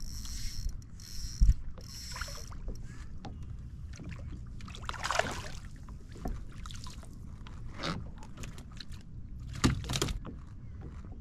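A fishing reel is cranked in a few short turns. About five seconds in comes a brief splash as a bass is landed by hand beside the kayak. A couple of sharp knocks on the kayak's plastic hull follow near the end.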